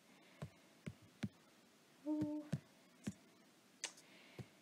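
Faint, irregular taps of typing on an iPad's on-screen keyboard, about seven in all. About two seconds in comes a brief hummed "mm" from a voice.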